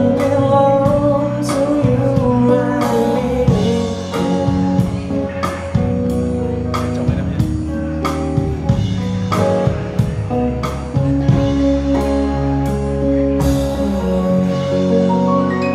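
Live pop ballad: a woman singing into a microphone over stage keyboard and electric guitar, with a steady beat of percussive hits. Near the end the beat drops out and the band holds a closing chord.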